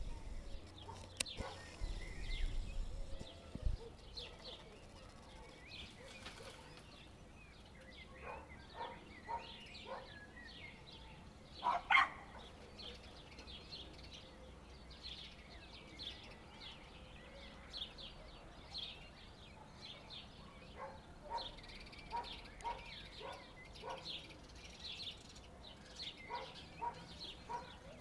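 Small birds chirping and singing, many short notes coming one after another, with one louder call about twelve seconds in. A low rumble sits under the first few seconds.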